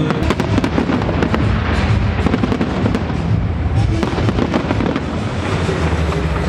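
A large fireworks display: a dense, irregular barrage of sharp bangs and crackling bursts going off in quick succession.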